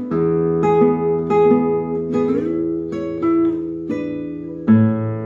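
Nylon-string classical guitar played fingerstyle: a slow melody of plucked notes about every half second over ringing bass notes. A louder, lower note or chord is plucked near the end and rings on.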